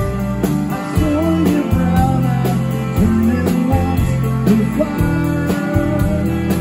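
Live rock band playing: an electric guitar lead with bending, sliding notes over bass and a steady drum beat of about two strokes a second.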